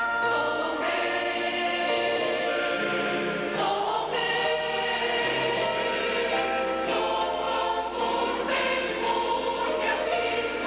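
Mixed choir of men's and women's voices singing in harmony, holding chords that change every second or so.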